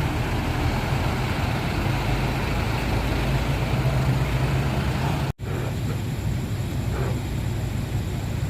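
Road traffic with heavy diesel engines of buses and trucks running close by: a steady low rumble, broken by an instant of silence about five seconds in.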